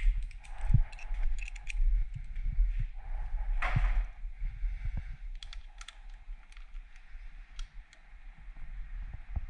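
Scattered small clicks, ticks and light rattles of hand tools and motorcycle lever parts being handled, with a louder scrape about three and a half seconds in.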